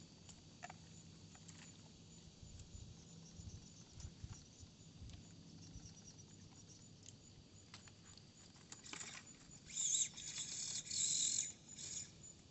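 Axial SCX24 micro RC crawler working over broken concrete rubble: faint gritty crunching and small clicks of its tyres on the grit, then louder hissy bursts of scrabbling about nine seconds in and again for over a second near the end as it slips down into a crack.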